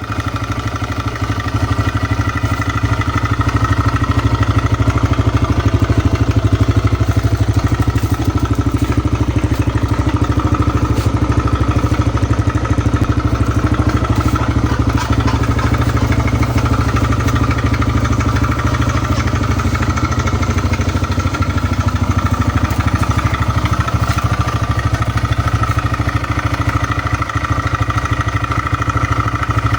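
TVS Raider 125's single-cylinder four-stroke engine idling steadily, making the unusual engine noise that is being checked as a fault.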